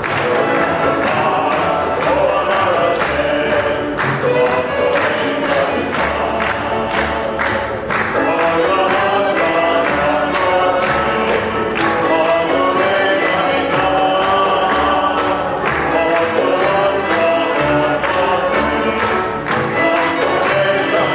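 A group of voices singing together over music with a steady beat.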